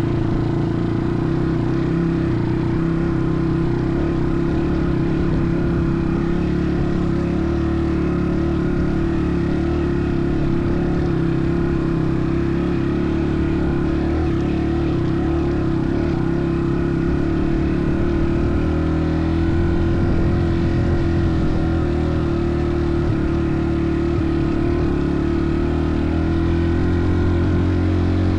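An engine running steadily at an even speed, with a steady low hum and no breaks.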